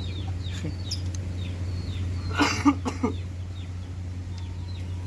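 Chickens clucking, with short high chirps repeating throughout and a few louder clucks about halfway through, over a steady low hum.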